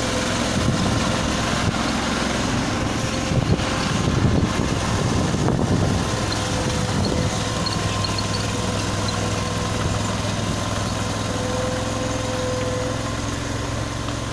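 Engine of a tea harvesting machine running steadily, a little louder for a few seconds near the start.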